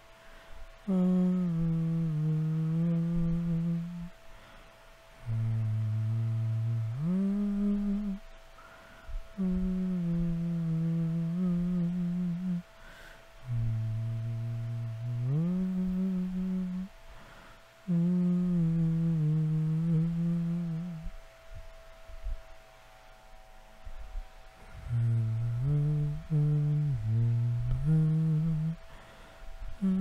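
A man humming a slow, wordless melody in low voice, in about six phrases of a few seconds each, with short breaks and a longer pause before the last phrase.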